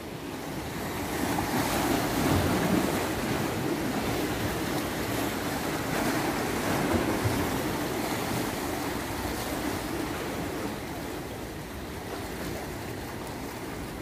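Sea waves washing and breaking against the concrete armour blocks of a breakwater, with wind buffeting the microphone. The surge swells a couple of seconds in and eases off near the end.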